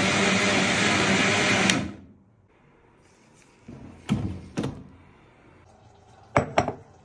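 Midea countertop blender running while blending a banana drink, switched off with a click just under two seconds in and quickly winding down. Two knocks follow a couple of seconds later, then a glass mug clunks down onto the counter near the end.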